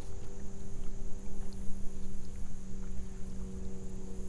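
Water sloshing and faint splashes around a plastic kayak as a small bass is pulled alongside and grabbed, over a steady low hum.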